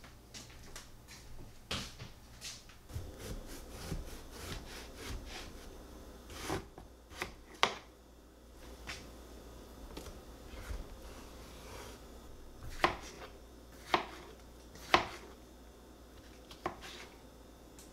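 Kitchen knife cutting a cantaloupe on a wooden cutting board: scraping and rubbing as the blade works through the melon, then a run of sharp knocks as the blade hits the board, the loudest three about a second apart in the second half.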